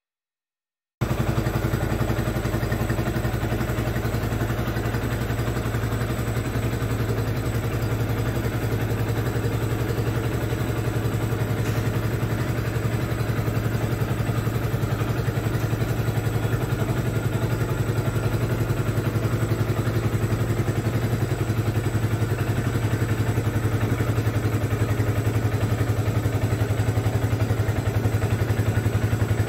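A 2008 Yamaha YZF-R125's 125 cc single-cylinder four-stroke engine idling steadily through a full-system Scorpion exhaust, cutting in abruptly about a second in.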